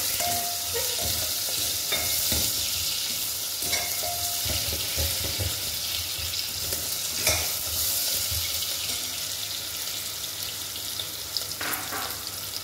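Sliced onions sizzling as they fry in hot oil in a pressure cooker, with a metal ladle scraping and clinking against the pot now and then as they are stirred.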